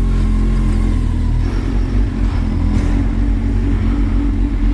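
Kawasaki Z1000's inline-four engine running as the motorcycle rides on, its note shifting about a second and a half in.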